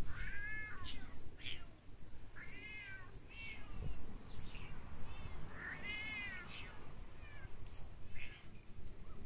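Bengal cat meowing repeatedly: a series of drawn-out meows, each rising and then falling in pitch, with shorter calls between. The longest comes about six seconds in.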